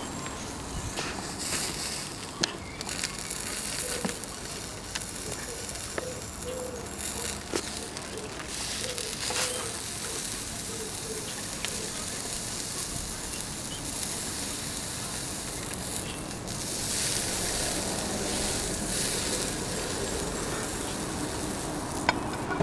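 Fire crackling and hissing in a small steel Firebox stove, with fat sizzling as a thick steak is seared over the flames. Occasional sharp pops stand out from the steady hiss.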